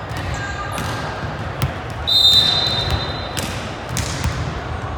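Volleyball being played in a gym: several sharp ball hits and thuds, and one short, shrill referee's whistle blast about two seconds in.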